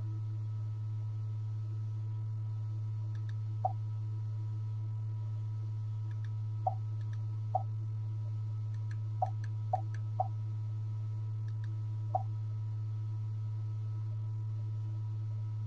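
Steady low hum of a YG300 mini LED projector running, with seven short, separate clicks spread over the middle of the stretch while the projected menu changes.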